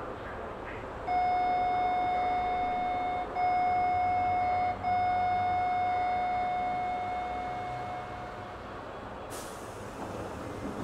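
Steady electronic warning tone of a train's departure, a single high beep-like note held with two brief breaks, fading out after several seconds, over the hum of the stationary train. About nine seconds in a sudden hiss of air starts.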